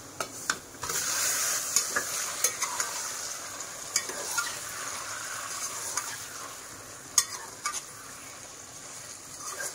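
Raw beef liver pieces landing in hot mustard oil with fried onions, a loud sizzle starting about a second in and slowly dying down as the cold meat cools the oil. A metal ladle stirs through the pot, with a few sharp clicks and knocks against the metal.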